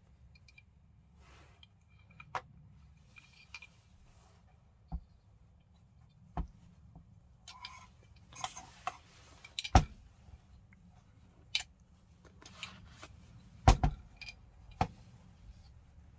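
Scattered sharp clicks and knocks of small parts, with light rustling, as a trigger board and its cable are handled and fitted into an airsoft rifle's lower receiver. The two loudest knocks come about ten and fourteen seconds in.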